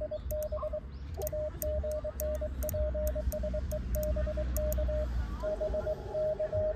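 Morse code (CW) keyed on a paddle: the transceiver's sidetone beeps dots and dashes at one steady pitch, each element with a sharp key click, sending 'QSB AGN PSE BK' (signal fading, please repeat). About five seconds in, the keying and clicks stop and a louder received CW signal starts, the other station's reply.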